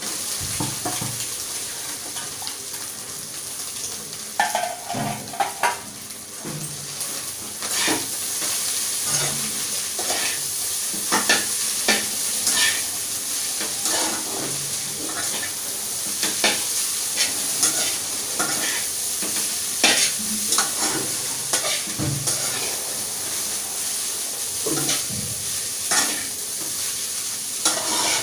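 Noodles and vegetables sizzling in a hot frying pan as a spatula stirs and tosses them, with frequent short clicks and scrapes of the spatula against the pan.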